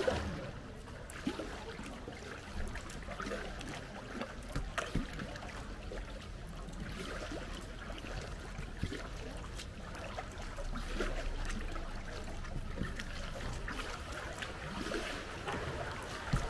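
Kayak paddle strokes: blades dipping and water trickling and dripping off them, with irregular small splashes.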